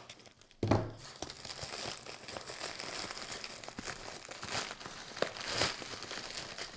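Crinkling plastic from a slit-open poly mailer bag and its wrapping as a box is worked out of it by hand, with one dull knock near the start.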